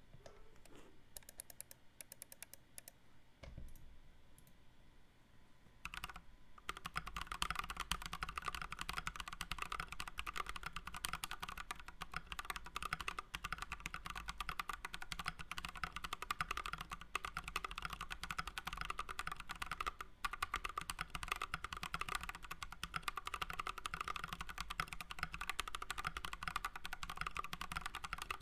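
Typing on a Rainkeebs Yasui V1 ortholinear mechanical keyboard with lubed Blue Velvet PME tactile switches, an FR4 plate, a 3D-printed case and MT3 keycaps. A few separate keypresses for roughly the first six seconds, then fast, continuous typing with one short pause about two-thirds of the way through.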